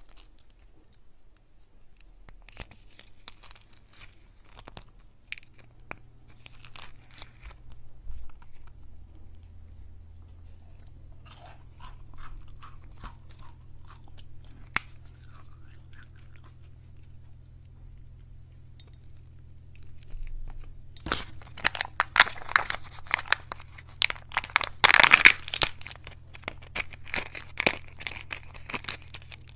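Crinkling and crackling of Kinder Joy egg packaging in hand: foil lid and plastic wrappers. Scattered light crinkles and clicks for most of the time, then dense, louder crackling and tearing of a toy wrapper being opened, loudest a few seconds before the end.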